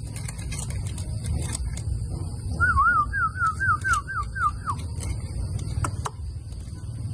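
A dog eating from a plastic tub, its chewing and the tub making scattered sharp clicks. About two and a half seconds in, a high warbling call of about eight quick repeated notes sounds over it for about two seconds. A steady high-pitched whine runs in the background.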